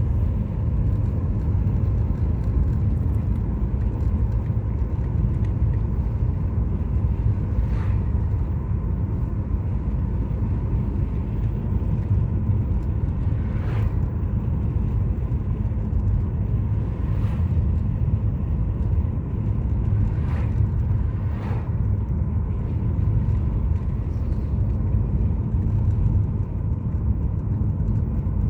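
Sea waves roaring on a beach: a steady low rumble of surf.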